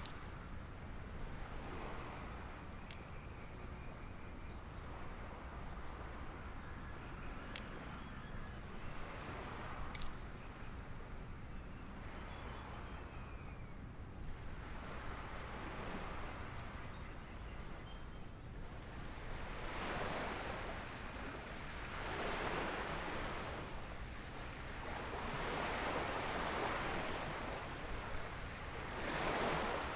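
Small waves washing onto the shore in slow surges that swell and fade every few seconds, growing stronger in the second half. A few sharp clicks sound in the first ten seconds.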